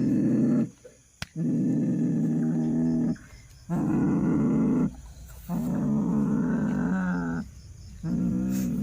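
A person growling: four long, deep growls in a row with short breaks between them.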